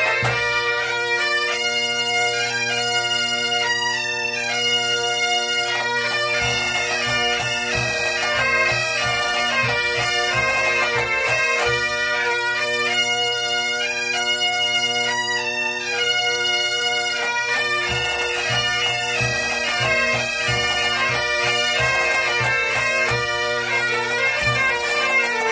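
A Galician pipe band's gaitas (bagpipes) play a tune together over a steady drone, from a cassette recording. Low drum beats come in about six seconds in, drop out around twelve seconds, and return at about eighteen seconds.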